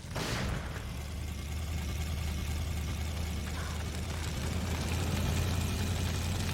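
A short rushing sound at the start, then a low, steady engine-like rumble that slowly grows louder.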